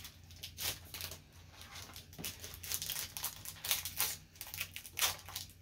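Foil Pokémon booster pack wrapper crinkling as it is handled, a run of short irregular crackles.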